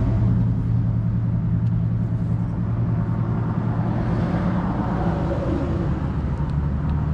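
Vehicle engine running steadily at idle, a constant low hum.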